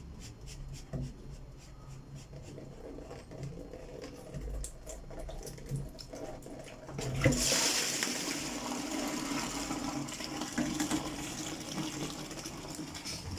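Dirty water from a blocked sink pouring out of an opened PVC bottle trap into a plastic bucket. A faint trickle at first, then a sudden heavy gush about seven seconds in that keeps splashing steadily into the bucket, as the backed-up sink drains through the opened trap.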